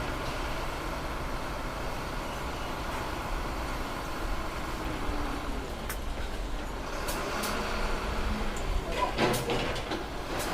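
Steady low mechanical rumble, with a few sharp knocks about two-thirds of the way through and a short cluster of knocks near the end.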